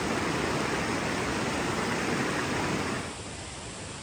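River water rushing over rapids, a steady even noise that drops to a quieter level about three seconds in.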